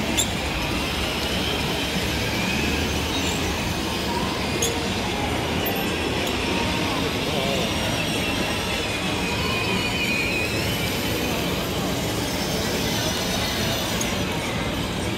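Children's electric ride-on cars driving: a steady mechanical hum with a faint wavering high whine over it, and a few light clicks.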